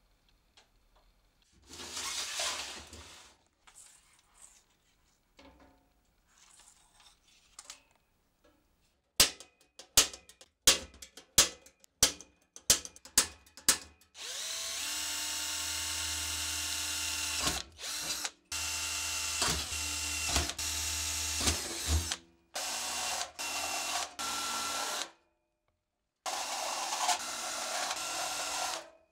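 Cordless drill drilling into the sheet-steel frame of a PC case, its motor running in several bursts with short stops and a steady whine. Before the drill starts, a quick string of sharp metal clicks and knocks.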